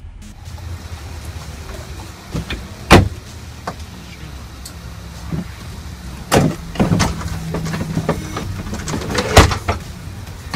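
Several sharp knocks and thumps over a steady low hum, the loudest about three seconds in and again near the end.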